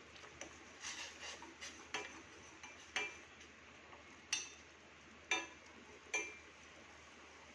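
Metal spoon clinking against a cooking pot while a kadha is stirred: a run of light clinks in the first two seconds, then single sharp, briefly ringing taps about once a second.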